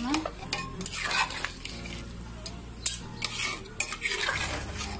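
A spoon stirring a pot of simmering mutton curry, with a series of irregular scrapes and clinks against the steel pot.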